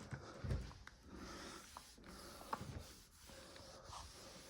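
A cloth being rubbed along a banister, wiping it over, with a few soft knocks.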